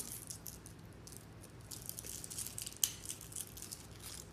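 Faint crackling and small clicks of a highball being sipped through a straw from an iced glass mug, with a couple of sharper clicks, one near the start and one about three seconds in.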